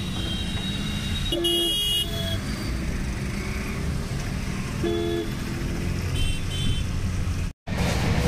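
Steady road rumble inside a moving car, with short car-horn honks from traffic about a second and a half in and again about five seconds in.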